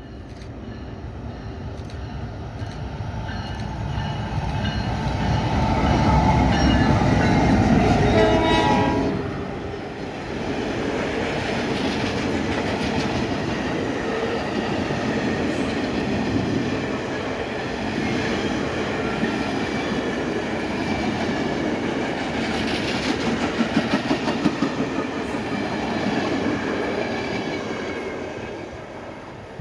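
Norfolk Southern diesel locomotives sound their horn on approach, loudest as they pass, and the horn's pitch drops about nine seconds in. The train's cars then roll by with steady wheel noise and a run of clickety-clack over rail joints, fading as the train moves off.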